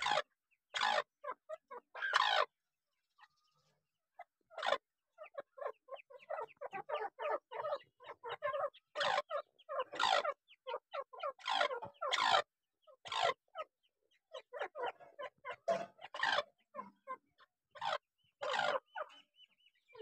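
Grey francolin hen with her chicks, giving a long irregular run of short calls, some loud and some soft, with a brief lull about three seconds in.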